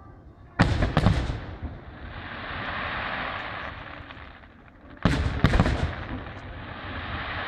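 Aerial firework shells bursting. Two loud bangs close together about half a second in, and two more about five seconds in. Each pair is followed by a hiss that swells and fades over a couple of seconds.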